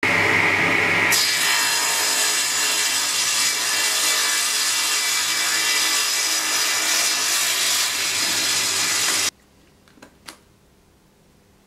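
Table saw ripping a small block of wood pushed through the blade with a push stick, a loud steady cutting sound that changes about a second in as the blade bites into the wood. It cuts off suddenly after about nine seconds, followed by two light clicks.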